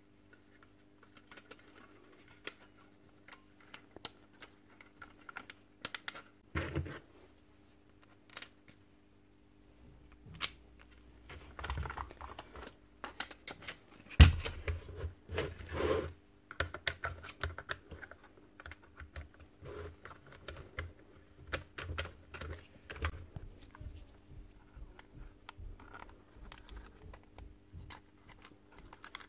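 Plastic and metal parts of a KMR gas staple gun clicking, tapping and knocking as it is handled and reassembled by hand, with one sharp knock about halfway through. A low steady hum runs underneath.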